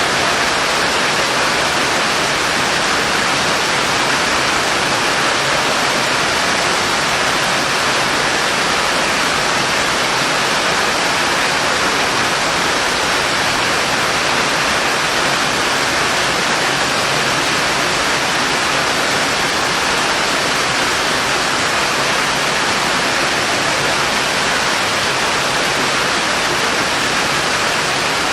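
Steady heavy rain: a loud, even, unbroken hiss with no single drops or other events standing out.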